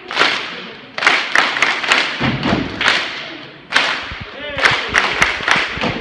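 Stepping routine by two performers: stomps and hand claps in quick runs of sharp, echoing hits with short pauses between.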